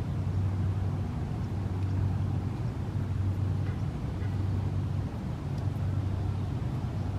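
Steady low rumble of distant engines, even in level throughout, with no distinct events.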